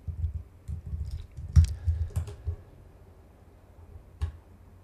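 Keystrokes on a computer keyboard: a quick run of key presses over the first two and a half seconds, then a single key press near the end.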